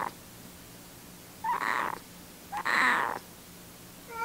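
Kitten purring while being stroked on the head, heard as two purring breaths about a second apart.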